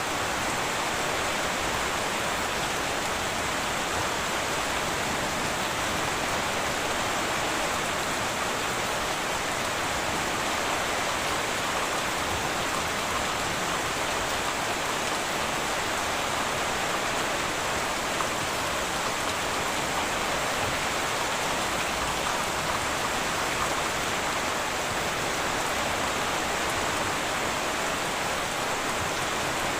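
Heavy rain falling steadily on a tin roof: an even, unbroken hiss with no thunder.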